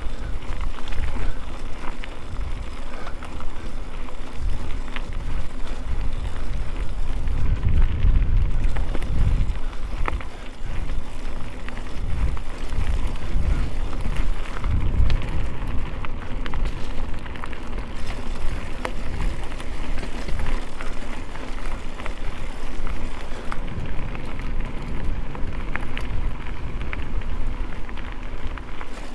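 Mountain bike rolling over gravel: tyres crunching with scattered small clicks and rattles, over a heavy, fluctuating rumble of wind buffeting the microphone.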